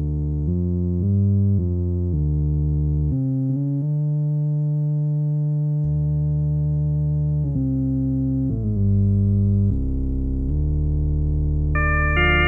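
Farfisa Pergamon analog electronic organ's bass register, played from the lower manual on its 8-foot stop: a line of low, sustained organ bass notes changing about twice a second, with one note held for several seconds in the middle. Near the end the tone turns brighter as higher notes join in.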